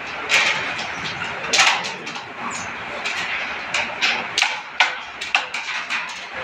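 Carrom being played: a wooden striker flicked into the carrom men, with a scatter of sharp clacks as pieces hit each other and the board's wooden frame, about ten over a few seconds, over a steady background hiss.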